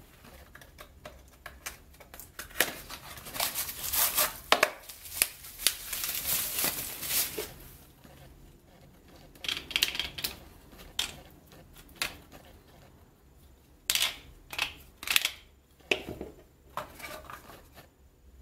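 Unpacking: a cardboard box being opened and plastic wrapping crinkling and tearing for several seconds, then a run of separate sharp clicks and knocks as the joints of a folding ABS plastic tablet stand are moved and it is set down.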